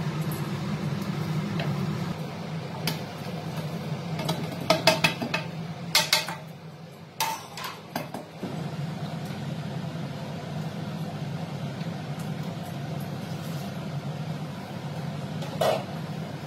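Steel kitchen vessels and utensils clinking and knocking together several times: a quick cluster about five seconds in, a few more over the next three seconds, and one near the end, over a steady low hum.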